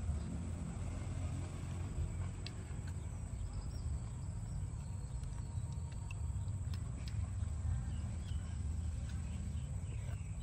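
Outdoor ambience: a steady low rumble of wind on the microphone under a thin, steady high insect drone, with a few faint clicks as steamed snails are picked from their shells.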